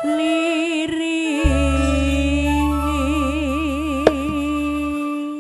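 A female campursari singer holds one long sung note with a wavering vibrato, through a PA. A deep sustained bass note comes in under it about a second and a half in, and there is a single sharp hit about four seconds in.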